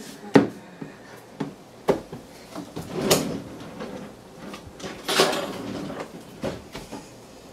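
Kitchen handling noises: a sharp knock about half a second in as a jar is set down on the countertop, then several lighter knocks and two longer sliding rushes like a kitchen drawer being pulled open and pushed shut.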